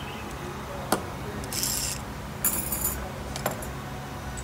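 Metal clicks and clinking from a bearing press and its steel drifts being taken off a bicycle freehub: a sharp click about a second in, then two short jingling rattles and a few lighter clicks, over a steady low hum.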